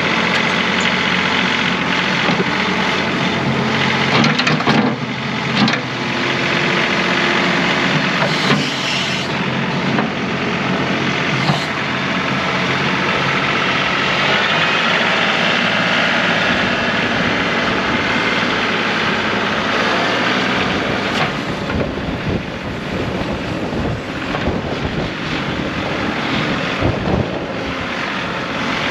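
Compact tractor's diesel engine running steadily, its sound shifting to a rougher, more uneven texture in the last third.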